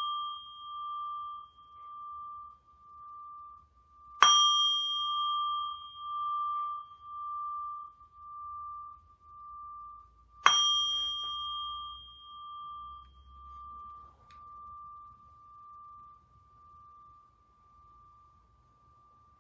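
A meditation bell struck twice, about four seconds in and again about ten seconds in, with the ring of a strike just before still sounding at the start. Each strike gives one clear high ringing tone that wavers in slow pulses as it dies away, fading to faint near the end. The ringing marks the start of a period of silent meditation.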